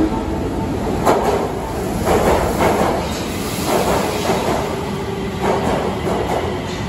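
Osaka Metro 30000-series subway train running into an underground station, a steady rumble with repeated wheel clacks over rail joints about once a second.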